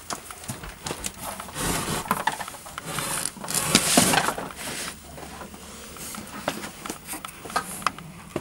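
Rustling, shuffling and light wooden knocks as a wood-panel closet door is pushed open and people move around a cluttered room, with two louder stretches of rustling about two and four seconds in.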